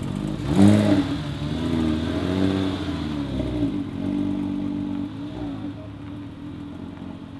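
A car engine is blipped sharply about half a second in, then revved up and down a few times before settling into a steady run.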